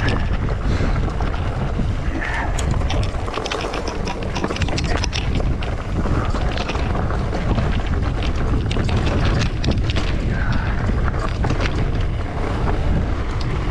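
Wind buffeting the microphone of a camera on a bicycle being ridden down a dirt trail, a loud steady rumble, with many sharp clicks and rattles from the bike and its tyres over the rough ground.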